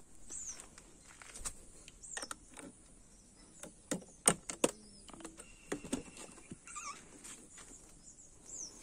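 Yamaha FZS seat lock being released and the seat unlatched and lifted off: a few sharp clicks and knocks of plastic and metal, the loudest about four seconds in. A bird gives a short high falling call again and again in the background.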